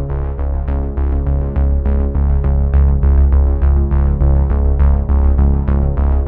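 Electronic music: synthesizer notes on a steady quick pulse over a strong, held bass.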